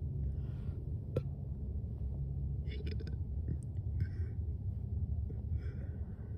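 Steady low rumble inside a parked car's cabin, with faint breaths, soft mouth noises and a few small clicks; no burp is heard.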